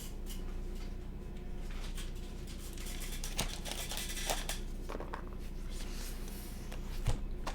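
Soft rustling and scattered light clicks of things being handled, loudest a few seconds in, over a steady low electrical hum.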